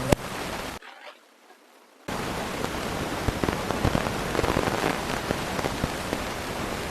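A single sharp joint crack from a chiropractic adjustment, right at the start, over a steady hiss with scattered faint crackles. Shortly after, the sound drops almost to silence for about a second.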